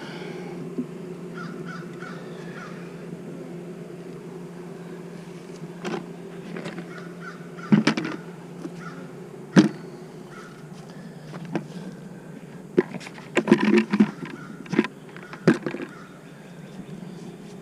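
Honeybees humming steadily around an open hive, broken by a series of sharp knocks and clatters from wooden hive frames and boxes being handled, loudest in a cluster about two thirds of the way in.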